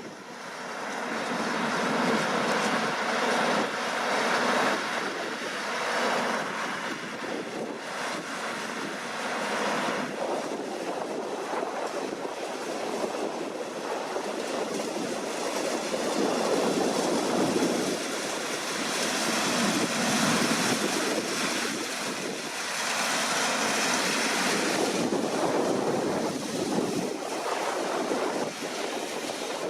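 Deutz-Fahr C9306TS combine harvester running as it harvests, a continuous noisy mechanical rush that swells and eases every few seconds.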